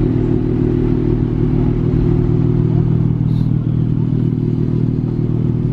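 Dodge Charger's engine idling steadily, a low even drone heard close to its exhaust.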